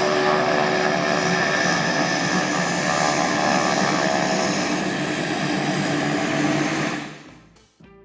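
Twin turboprop engines of a Beechcraft King Air taxiing: a loud, steady propeller drone and turbine whine with several held tones, which drops away about seven seconds in.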